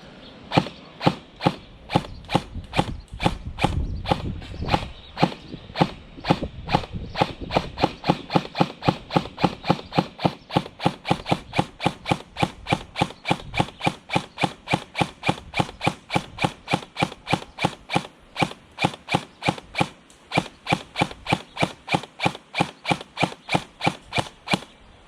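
Airsoft gun firing single shots in a long, steady string, about three sharp cracks a second, as a magazine is emptied.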